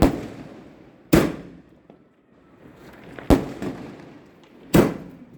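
Aerial firework shells bursting: four loud bangs at uneven gaps of one to two seconds, each trailing off in a rumbling echo.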